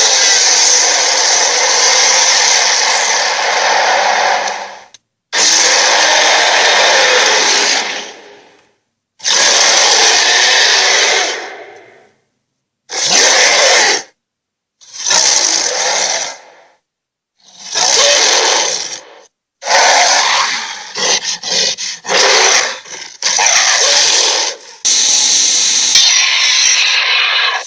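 Dragon sound effects: a run of about eight loud, noisy blasts without a clear pitch, each one to five seconds long, separated by short silences. The later blasts come shorter and choppier.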